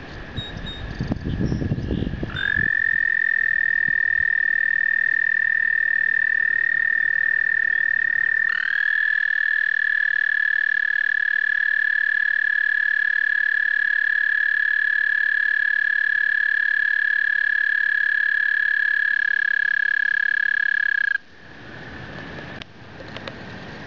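Male American toad trilling with its throat sac inflated: a long, steady, high-pitched musical trill that restarts about eight seconds in and stops abruptly near the end. This is the male's breeding call, with fainter trills of other toads behind it before and after.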